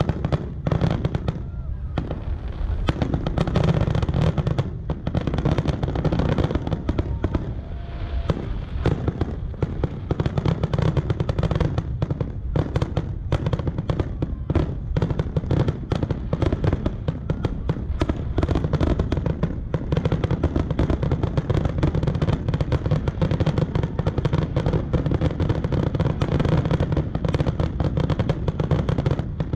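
Aerial fireworks shells bursting in a rapid, unbroken barrage of booms and crackles.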